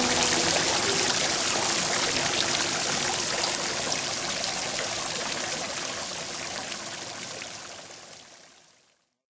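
Steady rain falling, a dense hiss with scattered drop ticks, fading out gradually until it is gone about nine seconds in.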